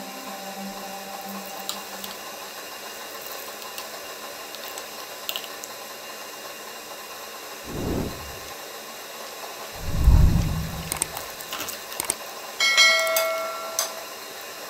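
Subscribe-button animation sound effects over a steady faint hiss: a low whoosh about eight seconds in, a louder whoosh about ten seconds in, then a click and a short ringing bell chime a little before the end.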